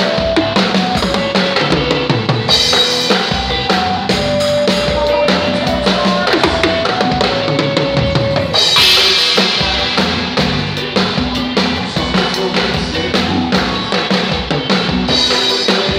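Drum kit played live with a band: kick, snare and cymbals in a steady driving rhythm under held keyboard notes, with a cymbal crash a few seconds in and another about halfway through.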